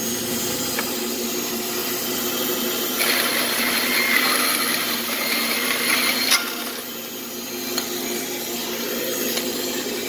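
Band saw running steadily and cutting through a 1-3/8 inch wooden closet rod to slice off a plug under half an inch thick. The cut grows louder about three seconds in, lasts about three seconds, and ends in a sharp click.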